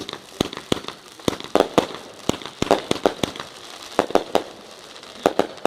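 A 200-gram consumer firework cake firing: a rapid, irregular run of sharp bangs, a few a second.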